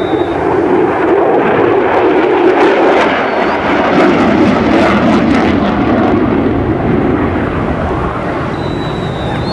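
Loud jet noise from a USAF F-16 Fighting Falcon in flight, steady throughout, with a crackling stretch from about two and a half to five seconds in.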